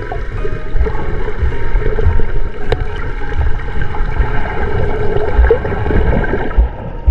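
Boat underway with water rushing past, and irregular gusts of wind buffeting the microphone.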